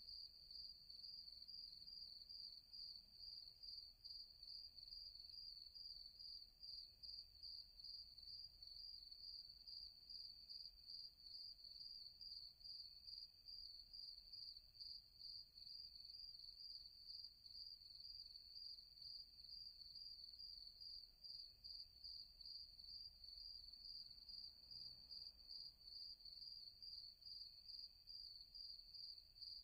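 Crickets chirping continuously, a high trill pulsing rapidly and evenly without a break, faint.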